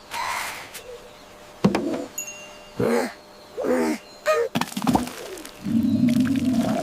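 A string of short cartoon sound effects: a knock and several brief squeaky, bending calls, then a low buzz near the end.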